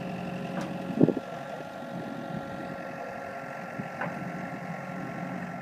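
Compact track loader's engine idling with a steady hum; a single loud thump sounds about a second in.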